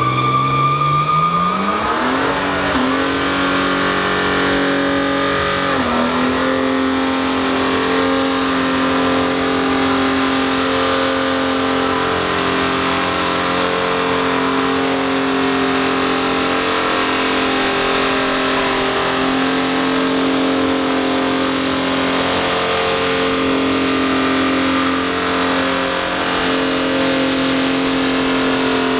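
Car engine revving up over the first few seconds, dipping briefly about six seconds in, then held at steady high revs over a hiss of tyre noise, as in a burnout.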